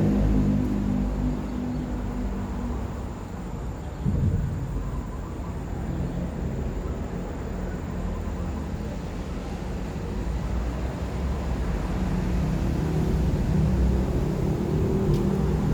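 Road traffic on the bridge overhead: a low engine rumble from passing vehicles, with a sudden thud about four seconds in and another vehicle's hum building near the end.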